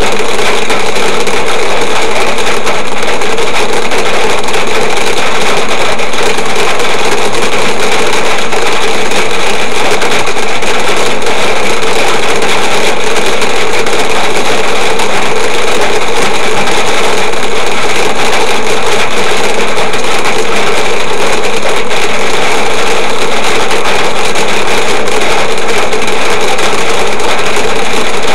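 A cloudburst of very heavy rain drumming on the car's roof and windscreen. It is a dense, steady din, loud enough to overload the recording.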